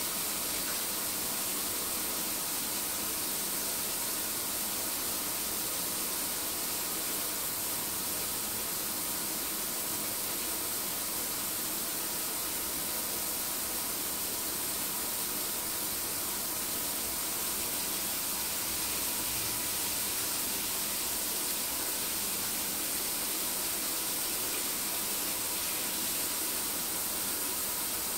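A steady, even hiss that does not change throughout.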